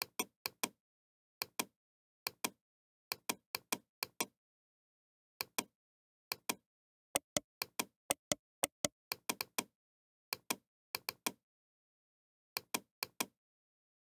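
Computer mouse clicking: sharp button clicks in quick pairs and small clusters of three or four, separated by gaps of silence.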